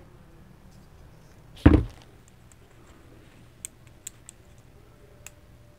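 Handling sounds from reassembling a pocket Wi-Fi router: one dull thump about two seconds in, then a few faint light clicks from its plastic frame and circuit board.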